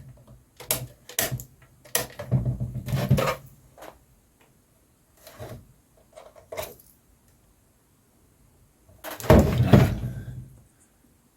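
Handling noises from a mains-powered tool that won't start as it is checked over: several separate clicks and knocks, a short scraping stretch, then a louder clatter about nine seconds in. The tool does not run because its 10 amp fuse is burnt out.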